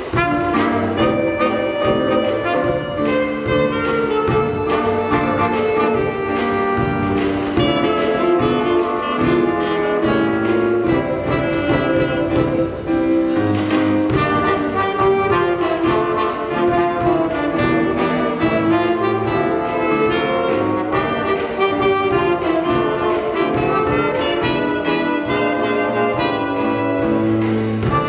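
Jazz band playing, with trombone, trumpet and saxophones carrying the lines over a steady beat.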